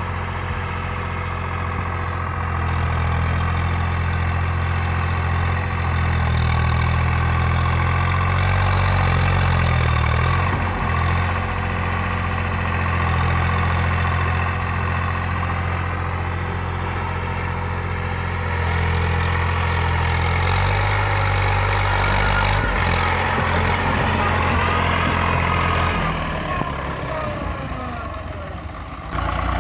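Swaraj 744 FE tractor's three-cylinder diesel engine running steadily as the tractor works through wet paddy mud. Its note shifts in pitch a few times, and near the end it dips before changing abruptly.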